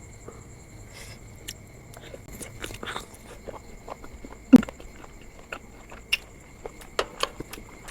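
Eating mixed instant noodles: soft chewing and wet mouth sounds with scattered sharp clicks, the loudest sound coming about four and a half seconds in.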